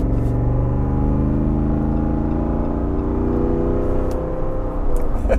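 Jeep Wrangler 392's 6.4-litre HEMI V8 pulling under moderate acceleration with its exhaust valves open, the engine note rising steadily in pitch, heard from inside the cabin.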